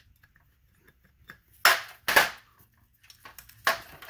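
Sharp metal clanks of a 24 mm combination wrench loosening the backup light switch on a manual transmission's aluminium case: two close together about a second and a half in, and a third near the end, with small ticks between.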